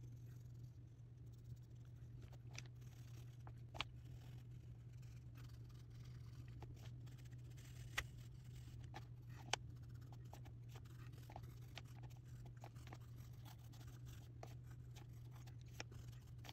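Faint scratching of graphite and colored pencils stroking across sketchbook paper, with a few sharper clicks, over a steady low hum.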